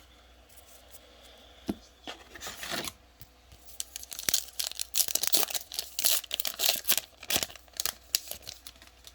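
A trading-card pack wrapper being torn open and crinkled by hand: a few scattered crackles at first, then a dense run of tearing and crinkling from about four seconds in to near the end.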